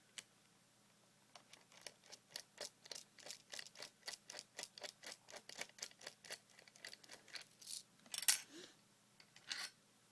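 Screwdriver undoing the small screw that holds the bipod rail on a W700 airsoft sniper rifle: a steady run of small clicks, about three a second. Near the end come two louder clattering sounds.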